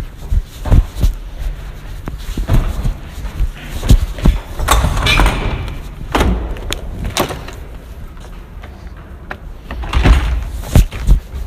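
Hurried footsteps and a string of heavy thumps, with a door banging, loudest about four to five seconds in and again near the end.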